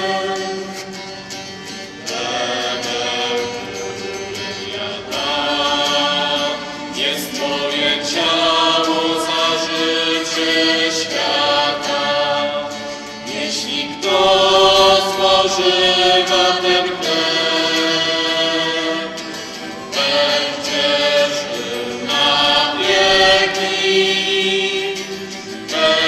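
A choir singing a slow hymn, each chord held for a second or more before moving to the next.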